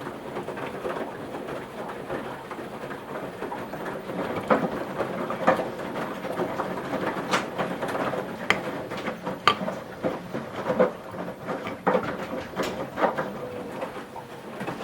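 Washing machine mid-way through a 40°C wash program: steady sloshing of laundry and water in the turning drum, with irregular sharp clicks and knocks about once a second through the middle.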